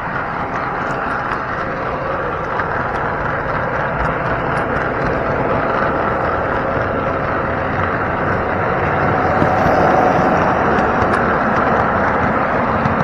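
O scale model train rolling along its track, heard from a camera riding in its front gondola car: a steady rolling rumble with light clicks, getting a little louder about two-thirds of the way through.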